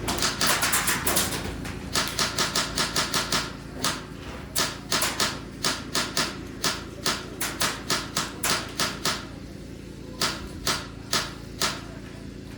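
Airsoft gun firing, sharp cracking shots: a quick burst at the start, a run of rapid shots about two seconds in, then single shots about two a second, and four more shots near the end.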